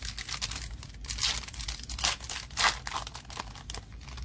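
Metallic foil wrapper of a Panini Revolution basketball card pack being torn open and crinkled: a run of irregular rustles with a few louder crackles.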